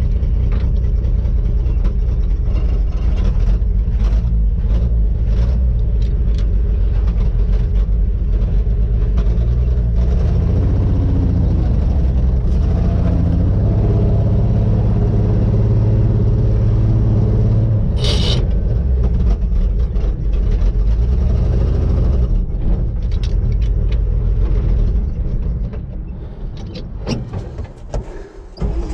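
A 1956 Chevrolet truck's 235 straight-six engine running under way, heard from inside the cab. Its note climbs through the middle, a brief sharp click comes about eighteen seconds in, and the engine eases off and grows quieter near the end.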